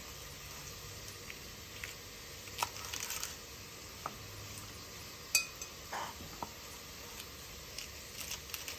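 Knife cutting curly kale off its stems on a plastic cutting board: scattered light taps and clicks of the blade against the board, the sharpest about five seconds in.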